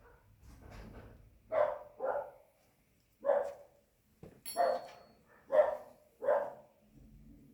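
A dog barking repeatedly, about six separate barks at uneven intervals.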